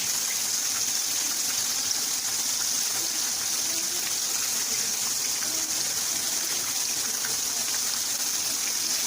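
Breaded chicken nuggets deep-frying in hot oil, a steady sizzle.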